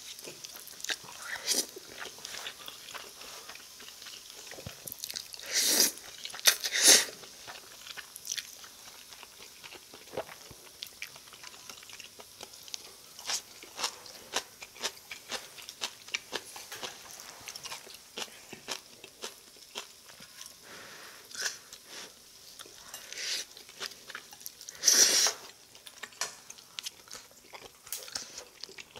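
Close-miked eating: a person slurping spicy cold noodles and chewing, with many small wet mouth clicks and a few louder slurps about six seconds in and again near twenty-five seconds.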